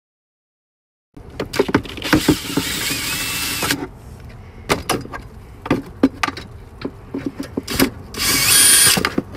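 Cordless drill-driver with a 10 mm socket bit running out the air box's bottom screws. After about a second of silence, the motor spins up with a rising whine for about two and a half seconds. Clicks and rattles of the plastic air box follow, then a second short burst from the drill near the end.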